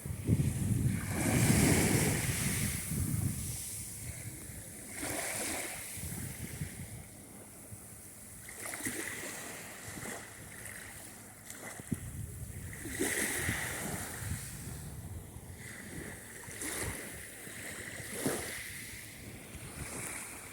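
Sea surf breaking on the shore in repeated swells that rise and fall every few seconds, the loudest wave near the start.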